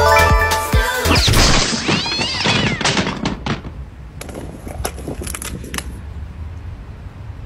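A music track with a beat cuts off about a second in. Then comes a high, wavering squeal that slides up and down in pitch, followed by a run of sharp crinkles and clicks as a snack can's peeled foil seal is handled.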